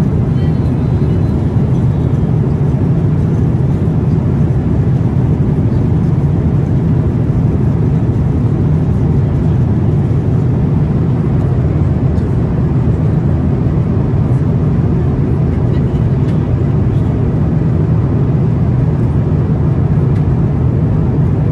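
Steady low rumble of cabin noise inside a Boeing 777-300ER airliner, holding an even level throughout.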